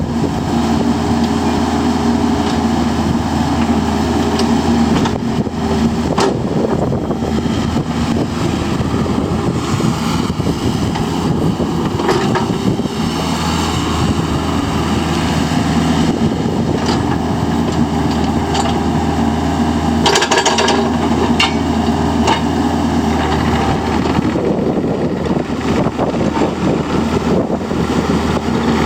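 Kubota KX121-3 compact excavator's diesel engine running steadily. Its note shifts a few times, and a few sharp clanks sound along the way.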